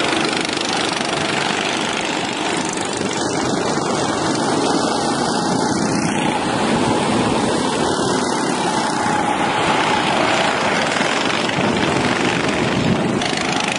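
Several go-kart engines running as karts lap the track, a steady drone whose pitch drifts up and down.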